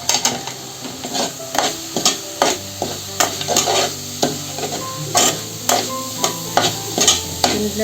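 A ladle stirring grated coconut in hot sesame oil and palm-candy syrup in a pan. It scrapes against the pan in repeated strokes, about two a second, over a light sizzle.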